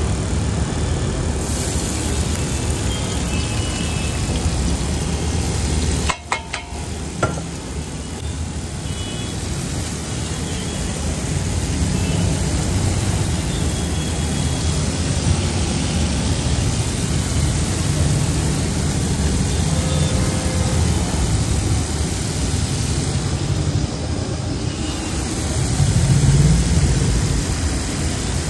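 Street cooking on a large iron griddle over a gas burner: a steady low roar with oil and shredded vegetables sizzling on the hot surface. A short break with a couple of sharp knocks comes about six seconds in.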